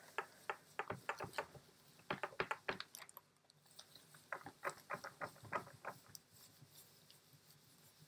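A baren rubbed in quick circular strokes over an acetate sheet on the print paper, a rhythmic scuffing of several strokes a second with a short break about three seconds in, fainter near the end. This is hand-burnishing, pressing the paper onto the inked linoblock to print the colour.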